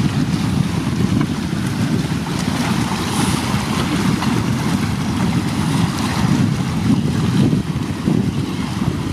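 Steady wind buffeting the microphone as a low, fluttering rumble, with waves lapping on the water underneath.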